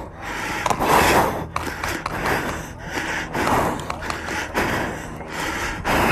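Heavy breathing close to the microphone, a rough breath about every second, some falling at the end, with faint clicks from the phone being handled.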